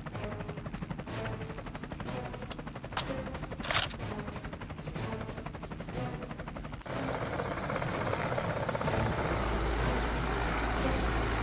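Helicopter rotor noise, a fast, even chopping, which jumps suddenly louder about seven seconds in and carries a heavy low rumble near the end. A single sharp click sounds a little under four seconds in.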